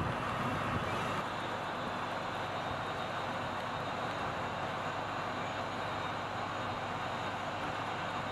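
Steady rushing road noise of a vehicle travelling at speed, a constant hiss of tyres and air with no clear engine note, easing off slightly about a second in.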